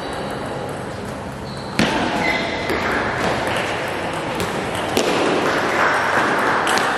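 Table tennis ball clicking off bats and table during a rally, with sharp hits standing out about two seconds in and again about five seconds in, over the steady background noise of a large hall with other tables in play.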